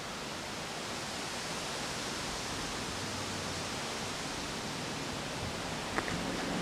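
Steady, even rushing noise of the open air, like wind through the roadside trees, with one short click about six seconds in.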